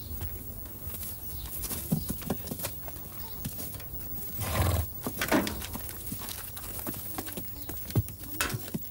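Donkeys' hooves clopping irregularly on stony ground as they walk out of a stable doorway, with one short, louder noise about halfway through.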